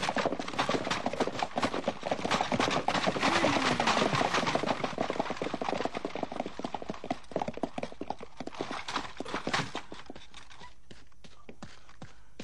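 Clip-clop of the hooves of horses pulling carts along a dirt road, a dense clatter that fades over the second half, leaving only a few scattered hoof knocks near the end.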